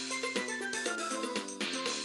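Background music: a quick run of short pitched notes over a steady drum beat.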